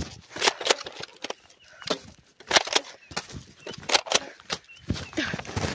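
Irregular thuds and rustling of someone running through grass and brushing past leafy bushes, several hits a second.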